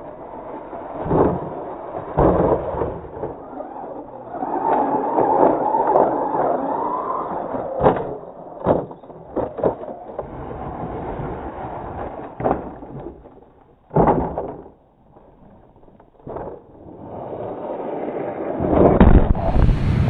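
Radio-controlled trucks driving on frozen gravel: a wavering motor whine and tyre noise, broken by scattered sharp knocks as the trucks climb, bounce and tumble. It goes briefly quiet about three quarters of the way through, and right at the end a rising whoosh starts outro music.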